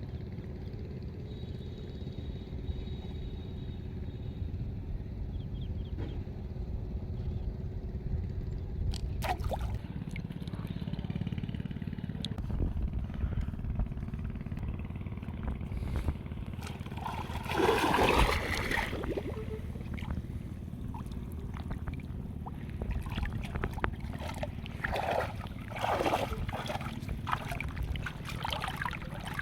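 Water splashing and trickling over a steady low rumble, with one louder splash lasting about a second some eighteen seconds in and several shorter splashes near the end.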